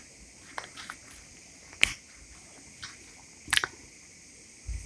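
A few separate sharp clicks and taps from a whiteboard marker being handled and set to the board, the loudest about two seconds and three and a half seconds in, with a short dull thud near the end.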